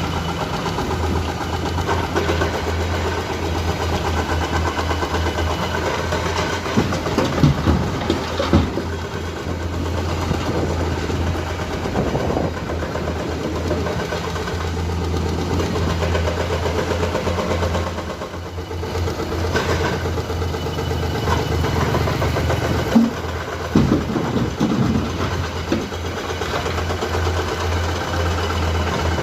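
Komatsu PC210 excavator's diesel engine running steadily under working load, with a few louder knocks and clatter about a quarter of the way in and again near the end.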